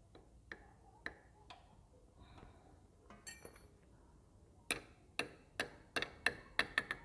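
Small metal clutch parts of a motorcycle clicking and clinking as they are handled: light ticks about every half second at first, then a quick run of sharper, ringing clinks in the second half.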